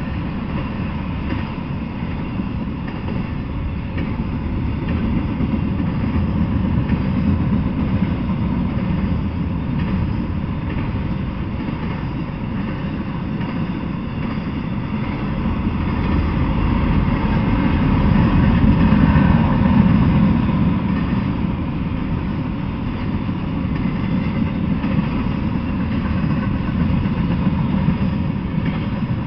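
Freight train of intermodal flatcars and autorack cars rolling past: a steady low rumble of wheels on the rails, swelling louder about two-thirds of the way through.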